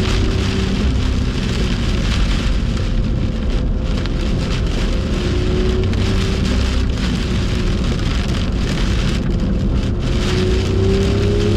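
Heavy rain hissing steadily over a BMW F87 M2 at speed on a soaked track, with its turbocharged straight-six running underneath. The engine note rises in pitch near the end as the car accelerates.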